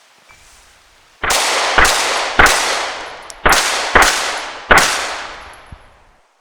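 Six 9mm shots from a Glock 34 Gen 5 pistol fired in quick succession, in two groups of three with a slightly longer pause between them as the shooter switches targets. Each shot trails off in a long echo.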